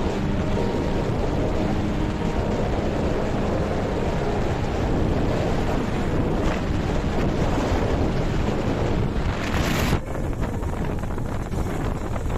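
Wind rushing and buffeting over the microphone on a moving motorcycle, a steady loud rush with road and engine noise mixed in. About ten seconds in it briefly dips and turns duller.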